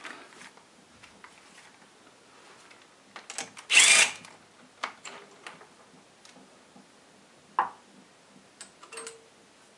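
A socket tool on an extension spins a cylinder-head stud nut loose in a short burst about four seconds in. Scattered light metallic clicks and clinks of the socket and nut follow.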